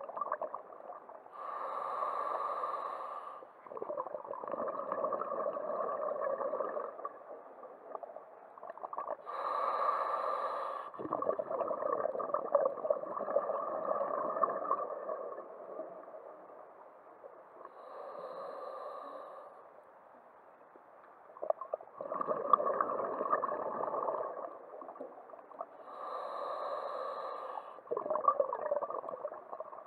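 Scuba diver breathing through a regulator underwater, four breaths: each a short hiss on the inhale followed by a longer rush of exhaled bubbles.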